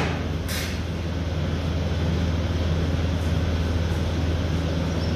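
Steady low electrical machine hum from running dairy equipment, with a brief scrape about half a second in.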